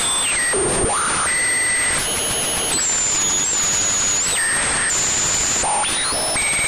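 Synthesized alien radio-interference effect: steady hissing static with thin whistling tones that jump between pitches and now and then glide up or down, like an odd radio being tuned.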